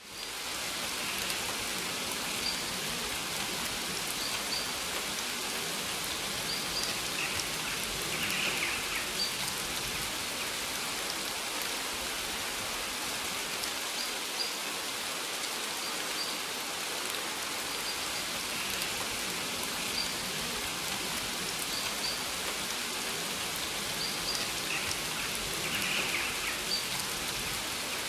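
Steady rain falling on maize plants, an even patter on the leaves. Faint short high chirps sound now and then over it.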